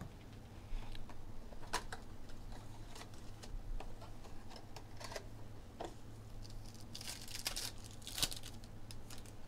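Hands handling a cardboard trading-card box, opening its flap and pulling out a pack, with scattered clicks and rustles. Near the end comes a denser burst of crinkling as the pack's wrapper is torn open.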